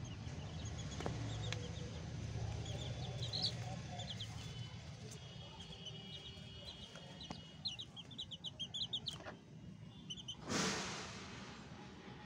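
Young chicks peeping in short high cheeps, with a quick run of cheeps about eight seconds in, while the mother hen clucks softly. A short rustling burst, the loudest moment, comes near the end.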